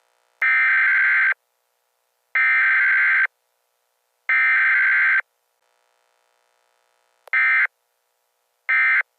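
Emergency Alert System SAME data bursts: three harsh, buzzy electronic bursts about a second long and a second apart, the digital header that opens an alert. They are followed near the end by shorter bursts of the same sound, as in the end-of-message code.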